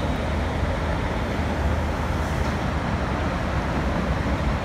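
Steady city traffic noise: a continuous low rumble with no distinct events standing out.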